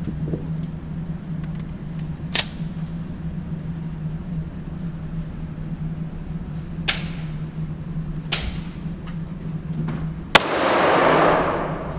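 Four handgun shots spaced a few seconds apart over a steady low hum. The last shot is much the loudest, with about a second of rushing noise after it.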